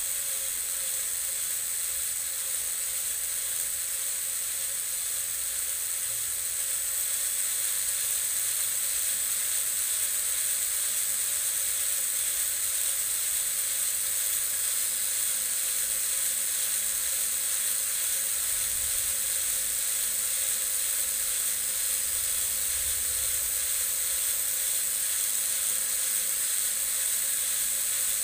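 Homemade RC model helicopter running on the ground with its rotors spinning: a steady high whine over a hiss, getting a little louder about seven seconds in.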